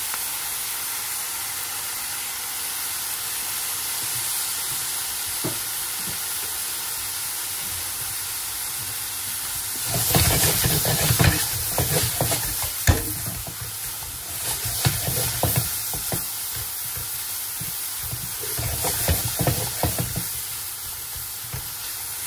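Sliced onions, tomatoes and green chillies sizzling in a frying pan, a steady hiss. From about ten seconds in, and again near the end, a silicone spatula stirs and tosses them around the pan in bouts of scraping and knocking strokes.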